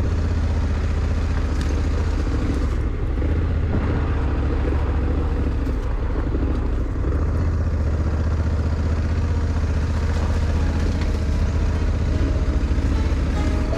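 Honda Africa Twin motorcycle's parallel-twin engine running steadily as the bike is ridden along a dirt trail, a continuous low rumble.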